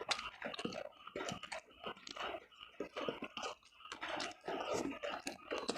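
A person chewing food with the mouth near the microphone: an irregular run of short, wet chewing sounds, several a second.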